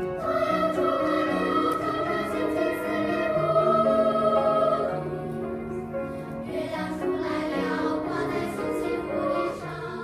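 Children's choir singing in long held notes.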